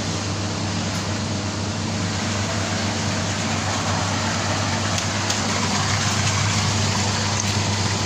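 Steady rushing noise over a low machine hum, growing slightly louder in the second half: a Girbau industrial washer draining, water from its drain hose running into the floor drain, against running laundry machinery.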